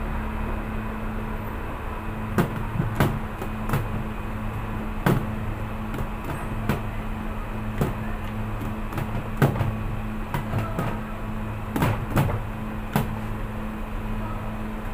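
Hands slapping and pressing a large mass of bread dough on a stainless steel table: about a dozen irregular sharp slaps and knocks, over a steady mechanical hum.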